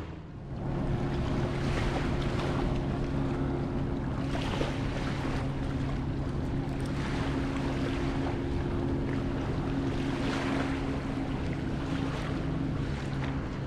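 A boat engine runs at a steady pitch over the water. Small waves wash in every couple of seconds, and wind buffets the microphone.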